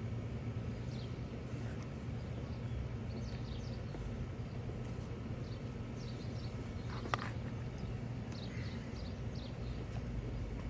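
Outdoor background of a steady low hum with small birds chirping briefly now and then, and one sharp click about seven seconds in.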